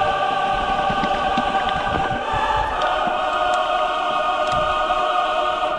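Choral music: voices holding sustained chords, shifting to a new chord a little over two seconds in.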